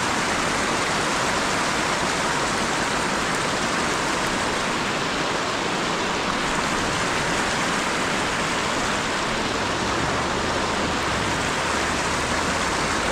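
Steady rushing of a small creek's flowing water, an even wash of noise with no breaks.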